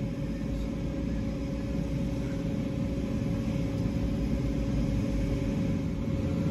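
Kenworth W900 semi truck's diesel engine idling with a steady low rumble, heard from inside the cab.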